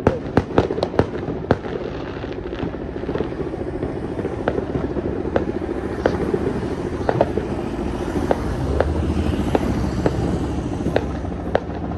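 Fireworks and firecrackers popping and banging: a quick run of sharp reports in the first second and a half, then scattered single pops. Under them runs a steady low drone that swells from about eight seconds in.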